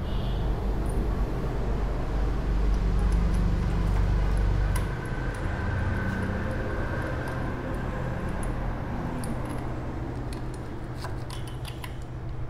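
A steady low mechanical hum, louder for the first few seconds, with a few light metallic tool clicks near the end as a spark plug is refitted to a motorcycle engine.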